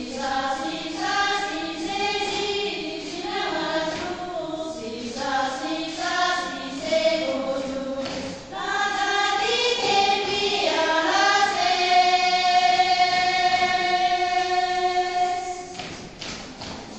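A group of women singing a Sherpa Shyabru song without instruments, in short phrases; the last note is held for about four seconds and stops about a second before the end.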